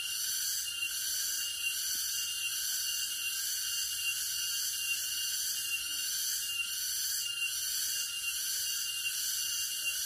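Cicadas droning in a dense, high-pitched chorus that holds steady without a break.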